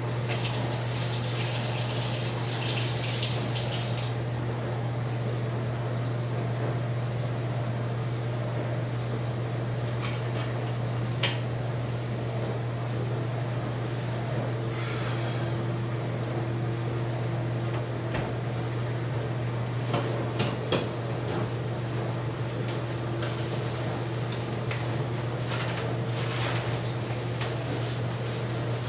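Kitchen cleanup over a steady low hum: a tap runs for a few seconds at the start, then scattered clinks and knocks of dishes and items on the counter. A plastic trash bag rustles near the end.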